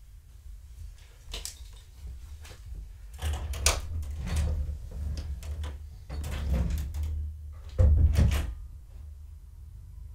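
A string of knocks, thumps and clatter as things are handled and moved close to the microphone, with low rumbling in between. It is busiest in the middle and toward the end.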